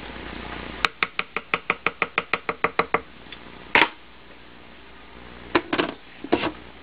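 A quick, even run of about fifteen clicks over some two seconds, then a single knock, then a few knocks as the lid of an electric pressure cooker is set on and handled.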